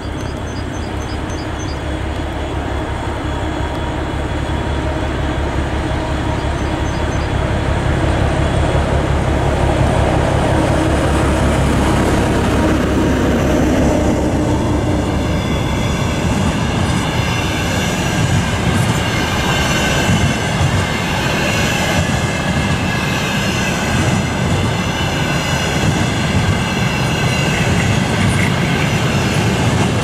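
ChME3 diesel shunting locomotive's six-cylinder diesel engine running as it passes, growing louder as it nears. About halfway through the engine sound gives way to the freight wagons rolling by, wheels clattering over the rails with squealing.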